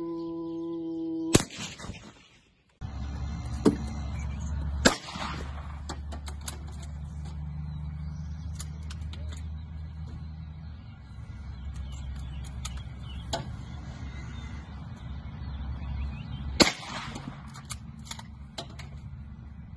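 Rifle shots at cattle: one sharp crack about a second and a half in, then two more, about five seconds in and about three seconds before the end, each trailing off in an echo. A steady low rumble runs under the later shots, and a short steady animal call is heard at the very start.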